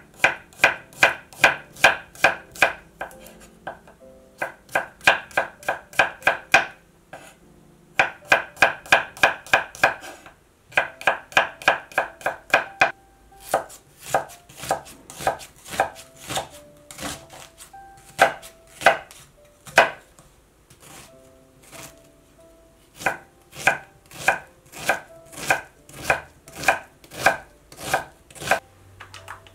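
Kitchen knife chopping on a wooden cutting board, in runs of quick strokes about four to five a second with short pauses. Through about the first half it is thinly slicing garlic cloves, then cutting and chopping an onion with sparser strokes.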